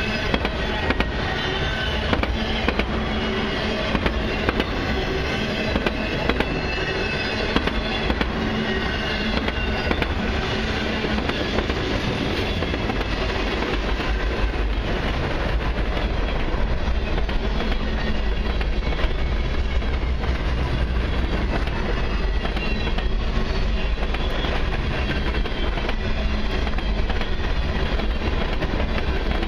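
Freight cars of a long train, autoracks then boxcars, rolling past close by: a steady rumble with continual wheel clicks over the rail joints.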